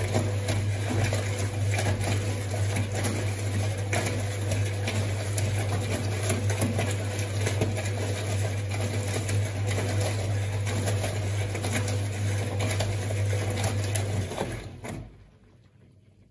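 Hajdú Energomat Komfort top-loading washing machine running with its drum turning: a steady low motor hum under a busy rattling clatter. About 14 seconds in the motor cuts out and the sound winds down within a second as the drum stops.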